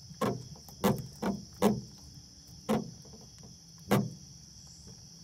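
An armado catfish, held out of the water while the hook is taken from its mouth, gives a series of short croaks, six in about four seconds at uneven spacing. Night insects chirr steadily behind it.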